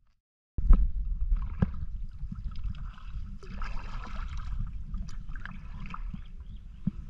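Small boat moving along an open-water channel: water splashing and sloshing at the hull with a steady rumble of wind on the microphone and scattered knocks. It starts suddenly about half a second in.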